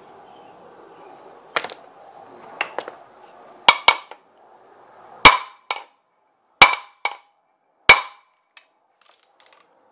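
Hammer striking a metal seal driver to tap a new axle seal into a Ford 8.8 differential housing, with a metallic ring. A few light taps come first, then three hard blows about 1.3 s apart, each followed by a lighter hit.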